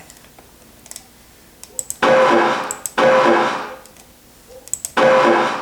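Playback of a short, noise-reduced snippet of shortwave radio noise that holds a purported voice utterance. It sounds as a hissy, filtered hum with a few steady tones in it, in two back-to-back blocks of about a second each. It plays about two seconds in and again near the end, each time just after a faint mouse click.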